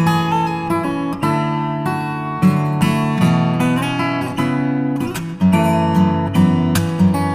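Background music: acoustic guitar played with plucked notes and strums.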